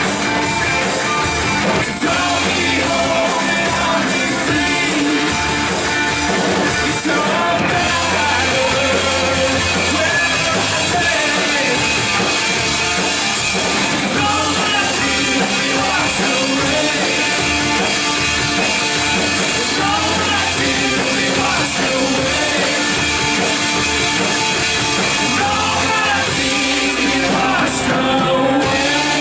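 Live worship band playing an upbeat rock-style song, with drums and a singing voice, loud and continuous.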